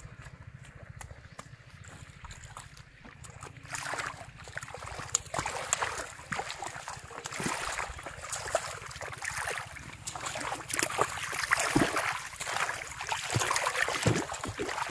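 Shallow muddy water splashing and sloshing as a person wades, kneels and gropes with their hands in it, in many short irregular splashes that start about four seconds in and grow louder. A low steady rumble sits underneath throughout.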